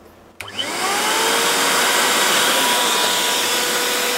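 A switch clicks, then a portable electric air blower starts: its motor spins up with a rising whine and settles into a steady hum over a loud rush of air.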